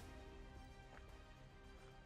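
Faint background music of held, overlapping notes.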